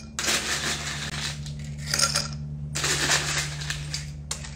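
Ice cubes dropped into a tall glass in four clinking bursts, filling it almost to the top.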